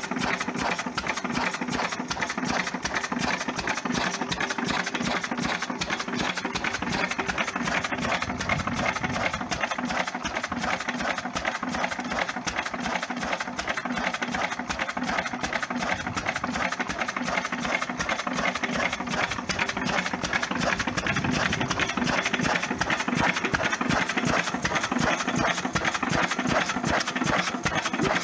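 Single-cylinder Lister stationary engine running steadily, with a fast, even beat.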